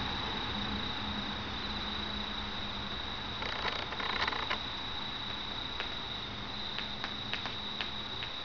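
Crickets trilling, one steady high-pitched tone without a break, over a low hiss. There is a brief rustle about halfway through and a few light clicks near the end.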